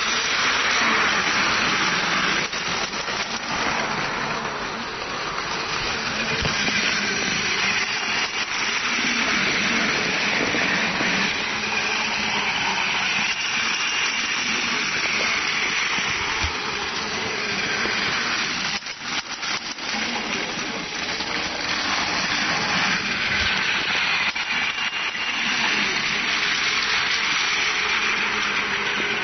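Battery-powered Plarail toy trains running on plastic track: the steady whirring of their small electric motors and gearing.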